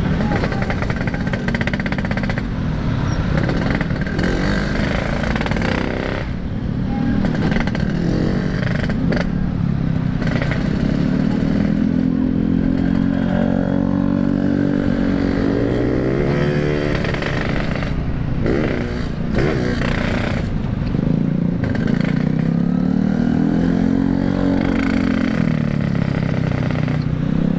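Yamaha RX-King's two-stroke single-cylinder engine running while riding, its pitch rising and falling several times as the throttle is opened and eased off.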